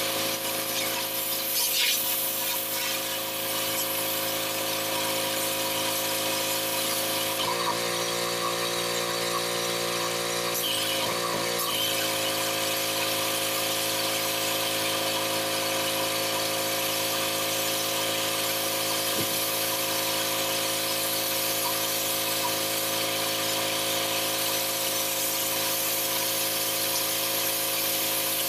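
Pressure washer running steadily: a machine hum with the high hiss of the water spray. The machine's note shifts for a few seconds about eight seconds in, then settles back.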